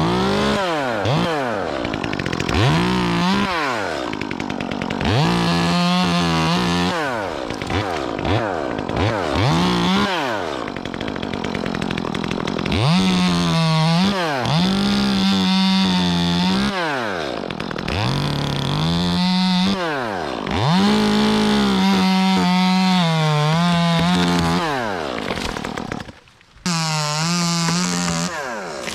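Two-stroke chainsaw revving in quick throttle blips and held at full throttle for a second or two at a time, several times over, as in cutting wood. It drops off briefly near the end, then revs again.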